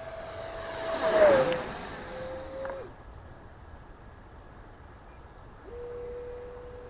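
E-flite Viper 70mm electric ducted-fan jet whining past on a low pass: a rush of air swells to a peak about a second in as the whine drops in pitch going by, then the whine cuts off just before three seconds. A fainter steady whine comes back near the end.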